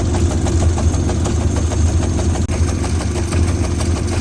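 VW Golf MK5 GTI's 2.0 TFSI four-cylinder engine idling roughly with an uneven, stumbling beat: a heavy misfire that leaves the car shaking.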